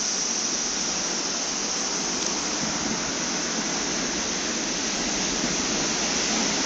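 Heavy surf from typhoon-driven high waves, a steady rushing hiss with no separate crashes.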